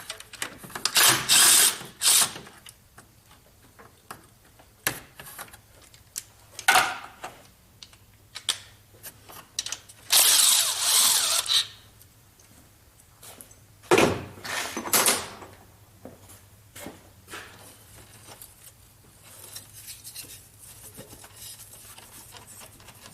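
Several short runs of a power tool, the longest about ten seconds in, with scattered clicks and clanks of hand tools, as engine accessories are unbolted.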